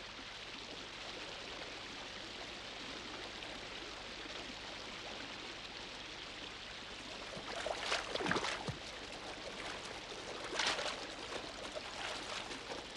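Steady rush of flowing river water, with a cluster of splashes about eight seconds in and another splash near eleven seconds.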